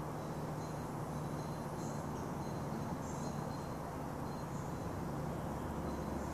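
Steady outdoor background noise: a low rumble and hum with a faint high steady tone and faint short high chirps recurring about every second.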